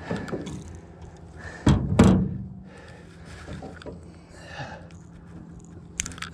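Two heavy thunks against the ribbed metal hull of a small fishing boat, close together about two seconds in, over a faint steady low hum.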